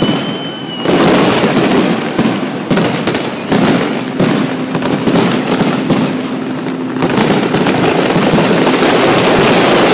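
Aerial fireworks bursting overhead: a rapid string of bangs and crackles from about a second in, which runs together into a dense steady crackle after about seven seconds.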